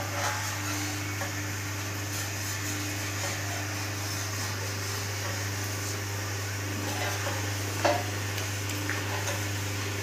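Steam-heated khoya kadhais running: a steady low hum from the four-arm stirrer drives, over a constant hiss of steam and churning, boiling milk. A short sharp knock about eight seconds in.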